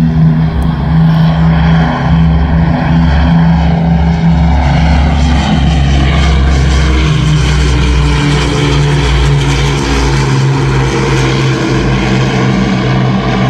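Avro Lancaster's four Rolls-Royce Merlin piston engines droning loudly as the bomber flies past, with the pitch drifting slowly.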